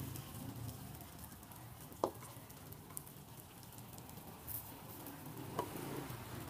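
Faint sizzling of cakes cooking in a cast-iron multi-cup pan over an open fire, under a steady low background hum. Two sharp metal clanks of cookware ring out, about two seconds in and again near the end, the second as a metal lid goes onto the wok of batter.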